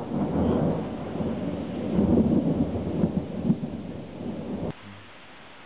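Thunder rumbling and rolling, swelling about two seconds in, then cut off abruptly near the end, leaving only a faint steady hiss.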